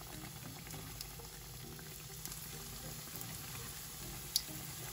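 Hot oil bubbling and crackling steadily around breaded mozzarella corn dogs deep-frying in a pan, with one sharp click a little over four seconds in.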